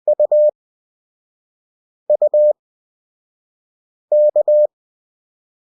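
Morse code (CW) practice tone: a single steady beep keying three characters about two seconds apart, U, U, then K (dit-dit-dah, dit-dit-dah, dah-dit-dah). The characters are sent fast at 20 WPM, with long Farnsworth gaps between them for a 5 WPM effective speed.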